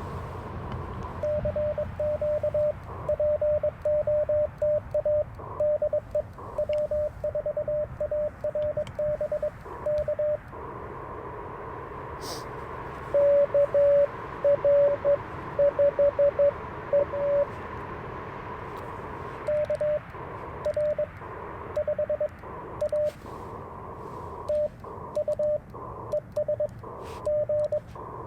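Morse code from an Icom IC-705 ham radio transceiver during a CW contact: the operator's keyed sidetone sending, a louder reply from another station in the middle, then more sending, over steady receiver hiss.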